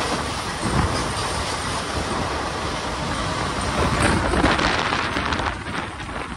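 Passenger train running on the track, heard from on board: a steady rumble of wheels on rails and wind noise. It grows louder about four seconds in, and short clicks follow near the end.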